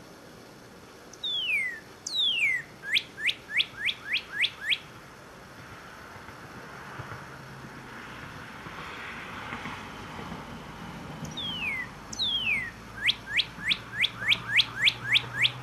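Male northern cardinal singing two song phrases. Each is two long down-slurred whistles followed by a quick run of short down-slurred notes.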